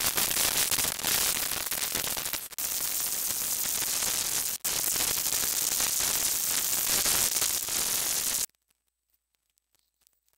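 Loud, steady static hiss, strongest at the high end, with two brief dropouts, cutting off suddenly near the end.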